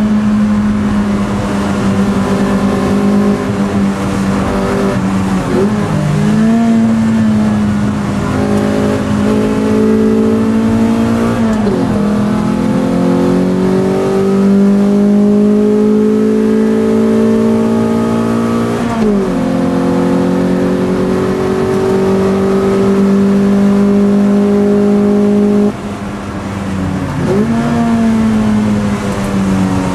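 Toyota MR2 race car's mid-mounted four-cylinder engine under hard acceleration, heard from inside the cabin. The engine note climbs slowly and drops sharply at each gear change, two or three times, then eases off briefly near the end before pulling again.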